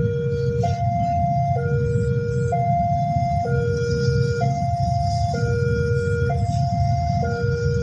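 Railway level-crossing warning alarm sounding a repeating two-tone chime, a lower and a higher tone alternating about once a second, signalling an approaching train. A steady low rumble runs underneath.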